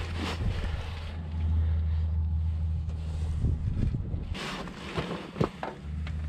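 A steady low hum. About four seconds in there is a rustle, then a few sharp metallic clicks and knocks as a socket on a long extension is fitted onto the engine's coolant drain plug.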